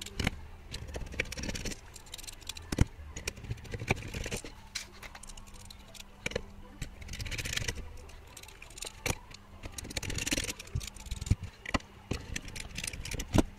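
Small metal hardware and hand tools handled on a workbench: irregular clicks, taps and light rattles, with a faint steady hum underneath.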